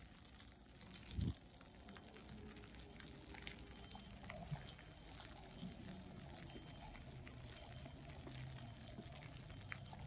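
Faint snowy city-street ambience: a steady low rumble of distant traffic that grows a little in the last few seconds, with a soft thump about a second in and scattered light ticks.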